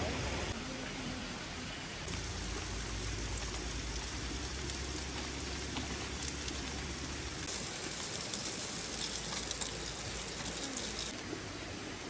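Wood campfire crackling over a steady hiss, the crackles thickest for a few seconds toward the end.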